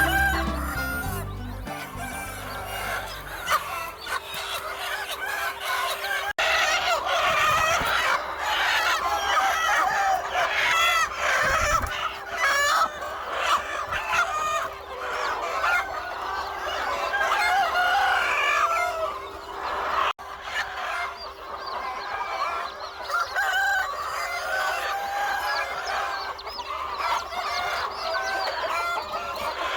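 A flock of chickens clucking and calling over one another, with a rooster crowing.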